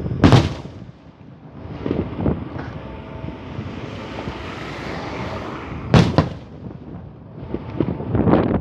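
Fireworks going off: a loud bang just after the start and another about six seconds in, with smaller pops around two seconds and a quick run of bangs near the end.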